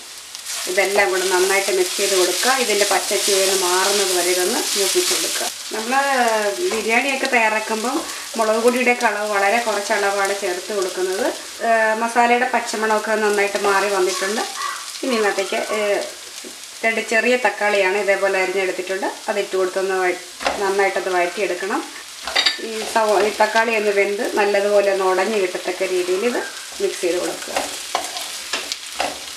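Sliced onions and spice powders frying in a pan, sizzling as a spatula stirs them. A wavering pitched sound runs over the frying, stopping and starting every second or two.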